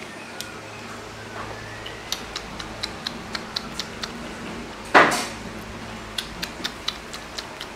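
Baby macaque chewing a piece of orange: quick, regular wet mouth clicks at about four a second, with one louder sharp noise about five seconds in.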